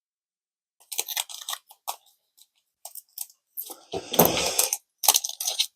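A Pokémon card booster pack wrapper crinkling and tearing open in short crackles, with a louder, longer crackle about four seconds in.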